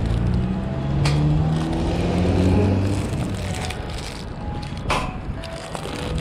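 A motor vehicle passing on the street, its engine drone building to a peak about two and a half seconds in and then fading. Two sharp clicks, about one second and five seconds in.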